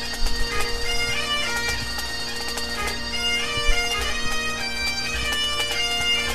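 Bagpipe music: a steady drone under a moving melody.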